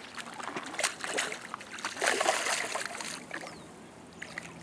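A hooked carp splashing and thrashing at the water's surface as it is played in, with the loudest splashing about two to three seconds in.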